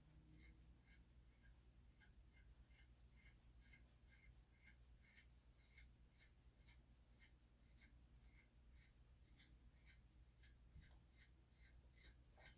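A comb drawn through a Schnauzer puppy's coat in quick, faint, repeated strokes, about four a second, over a low steady hum.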